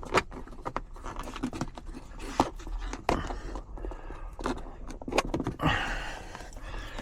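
A man breathing heavily as he works, with scattered clicks and scrapes of plastic interior trim and cable being handled as the wire is tucked in behind the panels.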